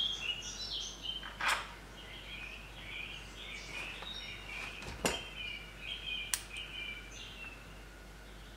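Birds chirping in the background throughout, with a few sharp clicks and knocks of small metal bolts and parts being handled on an outboard's lower unit. The loudest clicks come about a second and a half in and again around five seconds in.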